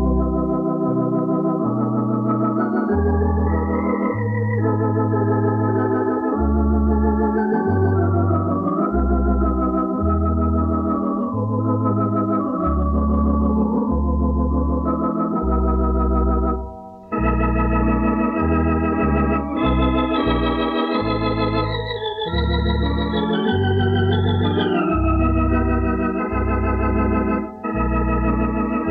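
Thomas electronic organ playing a melody over sustained chords and short pedal-bass notes, recorded on a 1970s cassette with tape wow and flutter. About 17 seconds in it breaks off briefly, then comes back brighter and higher in pitch.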